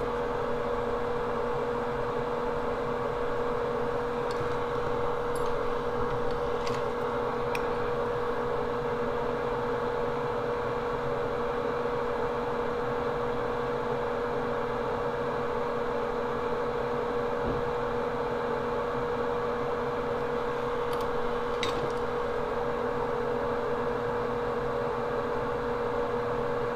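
Steady hum of a small bench fan or motor with a constant tone in it, unchanging throughout. Over it come a few faint ticks as the tools touch the circuit board, a handful in the first third and a couple more near the end.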